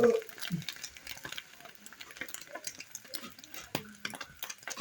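Food being stirred in a cooking pan: light, irregular clicks and scrapes, with a louder knock right at the start.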